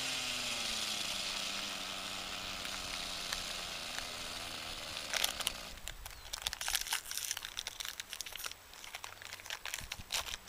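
A 600-size RC helicopter winding down after landing, its rotor and motor whine slowly falling in pitch and fading. From about five seconds in there is a run of irregular crackling clicks.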